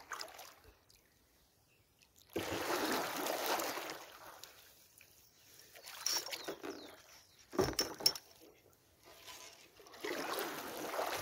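Kayak paddle strokes: blades dipping and pulling through the water with splashing and dripping, one longer wash a couple of seconds in and another near the end. Two sharp knocks in quick succession a little past the middle.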